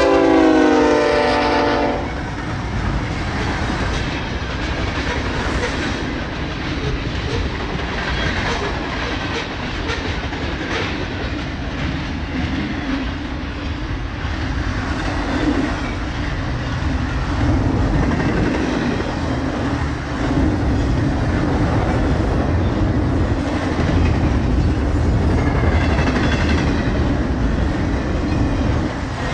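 Air horn of BNSF 5333, a GE C44-9W diesel locomotive, sounding a chord and cutting off about two seconds in. It is followed by the steady rumble and clickety-clack of a fast intermodal freight train's trailer-carrying flatcars rolling past.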